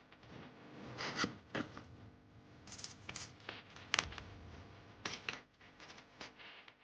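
Small plastic parts of a handheld cordless vacuum being handled and twisted, giving a scattered series of light clicks and scrapes. The motor is not running.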